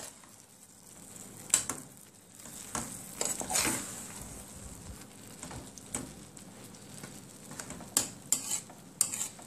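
A metal spoon stirring thick curry prawns in coconut sauce in a metal pot, scraping and knocking against the pan every second or two. Under it the sauce gives a faint steady sizzle on the heat.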